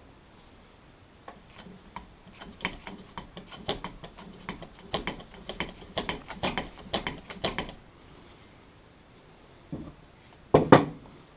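Quick run of metallic clicks and clatter from hand-tool work on a McCulloch 850 chainsaw's oil pump, which is being forced to free a stuck part, then two loud knocks near the end.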